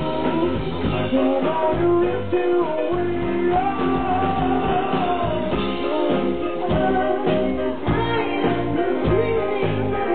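A rock band playing live, a voice singing over electric guitar with a steady beat underneath.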